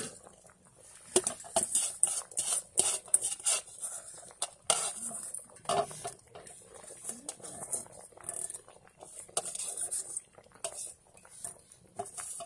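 Irregular sharp clicks and clinks around a large metal pot of soup cooking over a wood fire.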